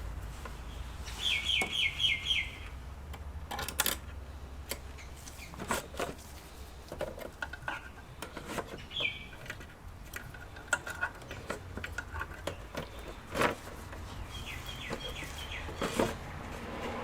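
A small bird chirping in short rapid trills of repeated high notes, three times, over scattered clicks and light knocks of hard parts being handled.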